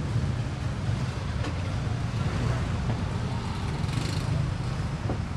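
Steady low engine rumble of street traffic, with a brief hiss about four seconds in.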